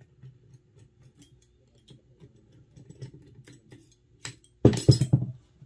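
Metal air-rifle parts and tools handled on a workbench during reassembly: scattered light clicks and scrapes, a sharp click about four seconds in, then a loud clatter of several quick knocks near the end.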